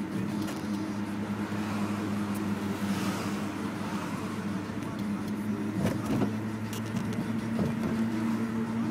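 BMW E46 running steadily with a low, even hum and a few light clicks about six seconds in. The owner suspects the alternator is failing.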